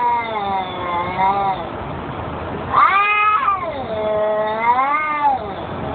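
Domestic cat meowing: two long, drawn-out meows. The first trails off about a second and a half in, and the second starts near three seconds in and bends up and down in pitch.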